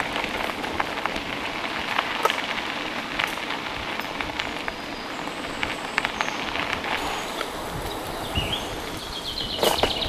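Mountain bike rolling over a dirt forest track: a steady crackling rush of tyres on the ground with scattered clicks and rattles from the bike. A brief high squeal comes near the end.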